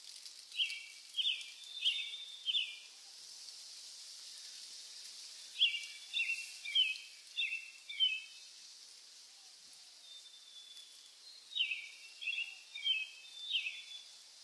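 A songbird singing three short phrases of quick, high, downward-sweeping notes, a few seconds apart, over a steady outdoor hiss.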